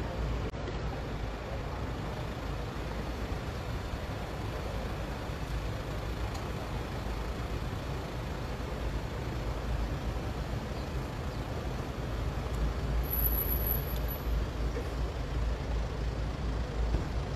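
Outdoor background noise: a steady, fluctuating low rumble with no distinct events.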